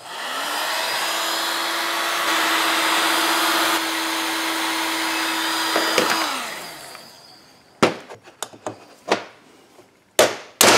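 Electric heat gun running steadily for about six seconds, heating the chainsaw crankcase half to loosen its main bearing. It is then switched off and its fan winds down with a falling pitch. A few knocks follow, and near the end a hammer starts tapping a socket set on the bearing to drive it out of the heated case.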